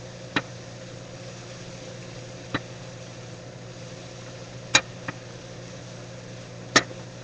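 A utensil knocking against a frying pan five times while food is stirred, the two loudest strikes near the end. Under it runs a steady low hum.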